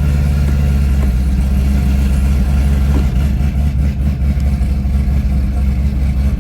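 Chevrolet Camaro ZL1's supercharged V8 engine running with a steady low drone that turns a little rougher about halfway through.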